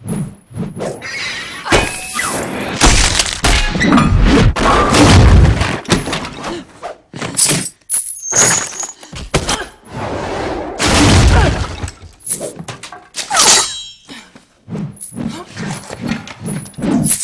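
Film fight sound effects from a meteor-hammer and sword duel: a rapid run of crashes, smashing and thuds as things break, in dense flurries with short lulls between, over music.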